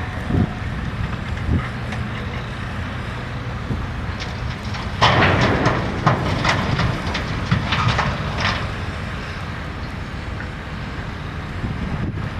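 Excavator at work: a diesel engine runs steadily under a cluster of loud metallic clanks and scrapes from about five to eight and a half seconds in.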